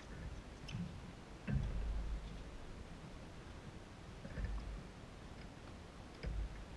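Wind buffeting the camera microphone in three short low rumbles, over a faint steady outdoor hiss with a few light, distant ticks.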